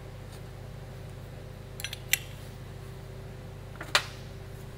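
Metal parts and hand tools clinking against a metal workbench: a few light ticks and a sharp clink about two seconds in, then a louder clack just before four seconds, over a steady background hum.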